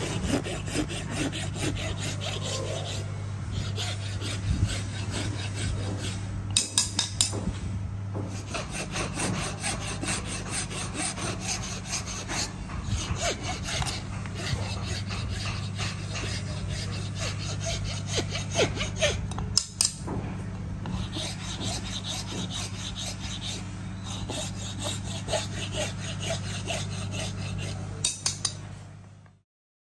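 Rapid rasping strokes of a file worked over a steel sword blade, over a steady low hum, with a few sharper knocks; it cuts off suddenly near the end.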